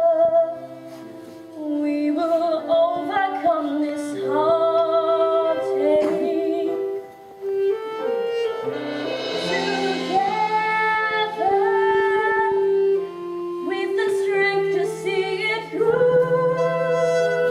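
Musical-theatre song: a singer holds long, wavering notes with vibrato over an instrumental accompaniment of sustained chords.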